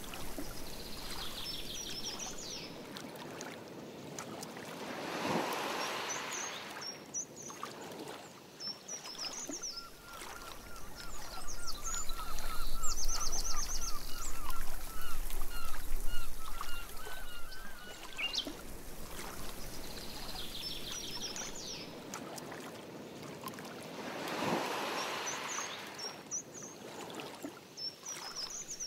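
Canoe paddling on a lake: water swishing and sloshing around the paddle and hull, loudest in the middle. Birds chirp throughout, and one bird repeats a quick series of short notes in the middle.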